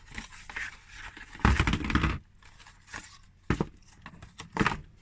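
A small cardboard paint box and its plastic squeeze tubes of paint being handled: rustling and scraping, a louder rustle about a second and a half in, and two sharp knocks in the second half.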